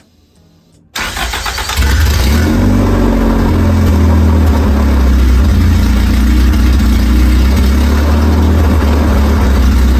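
A 1995 Acura Integra's four-cylinder engine starts about a second in and settles into a steady, loud idle, run so the alternator can be tested.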